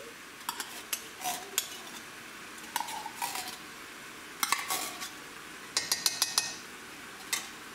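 A metal spoon scraping and clinking against a tin can and an enamelled casserole pot while thick condensed mushroom soup is scooped out, with a scattered series of short clanks and taps, a quick cluster of ringing metal clinks a little past the middle.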